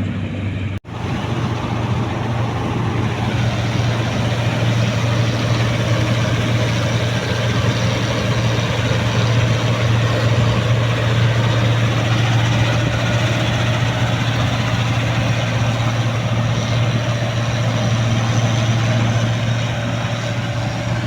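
A combine harvester's diesel engine running steadily at a constant speed, with a strong low hum. The sound cuts out for an instant about a second in.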